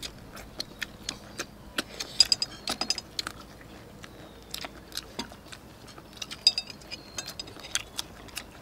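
People chewing and smacking their lips while eating roast chicken with rice: an irregular scatter of short sharp clicks and smacks, thickest about two to three seconds in and again around six and a half seconds in.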